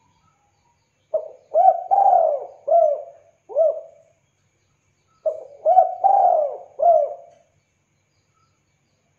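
Spotted dove cooing: two phrases of repeated low, arching coos, the first of five notes starting about a second in, the second of four notes starting about five seconds in.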